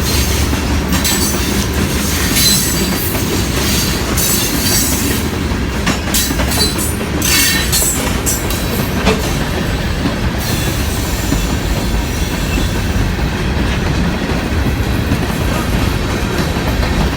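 A train passing close by on the tracks: a loud, steady rumble of wheels on rail, with sharp metallic clicking and clatter over about the first ten seconds that then thins out.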